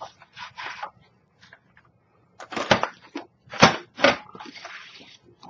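Cardstock rustling as it is slid into a We R Memory Keepers Lucky 8 paper punch, then three sharp clacks as the punch is pressed down with both hands and cuts the paper, followed by more paper rustling.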